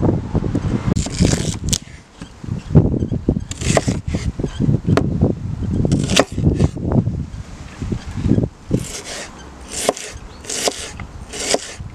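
Kitchen knife slicing through an onion and striking a wooden chopping board, ending in a run of even cuts about two a second, with a low rumble under the earlier strokes.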